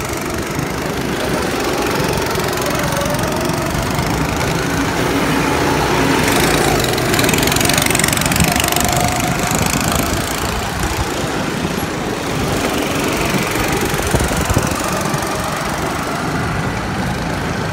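Small petrol engines of several go-karts running on a track, their pitch rising and falling as the karts speed up and slow down through the turns.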